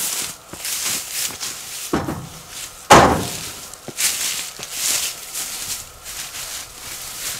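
Footsteps crunching and rustling through leaves and brush, with two dull thuds about two and three seconds in, the second one the loudest.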